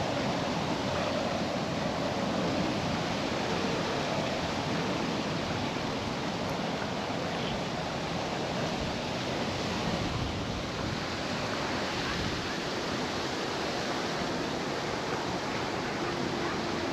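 Steady, even outdoor rushing noise with no distinct events.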